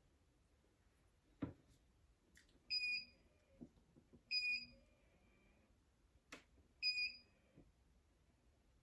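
Three short, high electronic beeps about two seconds apart, with a couple of sharp clicks or knocks between them.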